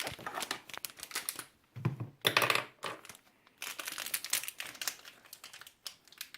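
Plastic packaging crinkling and rustling in irregular bursts as hands work it open.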